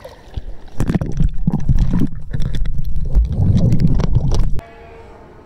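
Pool water splashing and sloshing right against a phone's microphone as a swimmer pushes off: a loud, muffled rumble full of crackles that stops suddenly about four and a half seconds in.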